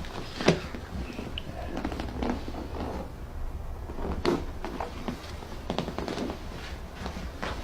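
A few sharp clicks and knocks with rustling movement, the loudest about half a second in and another at about four seconds.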